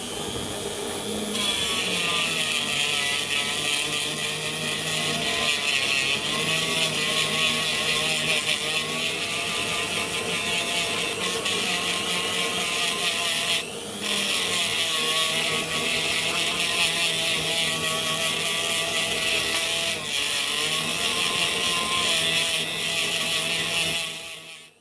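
HILDA JD3321C rotary tool spinning a polishing disc with polishing paste against a workpiece: a steady motor whine with a loud hissing rub from the disc, its pitch wavering slightly as the pressure changes. It eases off briefly about 14 seconds in and stops near the end.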